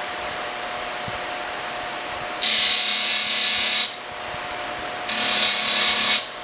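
A power tool run in two short bursts, about a second and a half and then about a second, each starting and stopping abruptly with a high hiss, over a steady shop hum.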